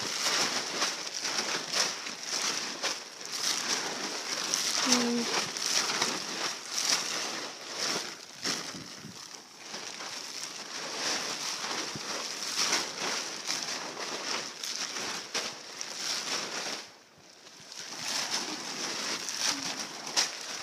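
Continuous irregular crunching and crackling over a steady high hiss.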